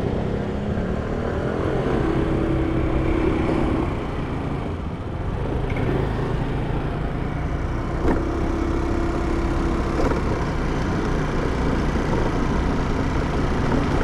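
Riding a scooter: the engine running under steady wind noise on the microphone, with a steady humming tone coming in twice for about two seconds each.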